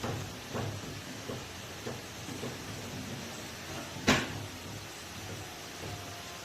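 A few light knocks over a steady hiss, then one sharp, loud knock about four seconds in.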